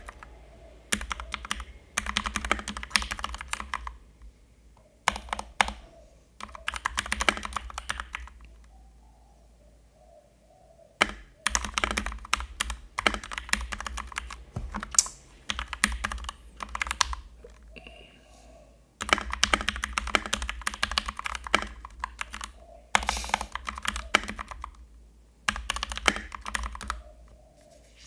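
Typing on a Keychron K2 mechanical keyboard with red linear switches: quick runs of key clacks in bursts, broken by short pauses.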